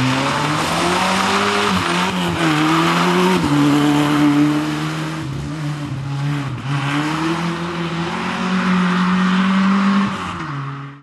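Opel Corsa rally car's engine driven hard at high revs, the pitch climbing and then dropping sharply several times as it shifts gear.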